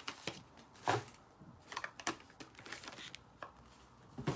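Cardboard boxes and product packaging being handled: a scatter of light taps and clicks, with one louder knock about a second in.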